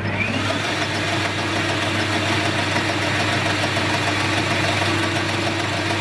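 Metal lathe running steadily with an even motor hum while a 3.5 mm twist drill is fed from the tailstock into the spinning workpiece, drilling out its bore.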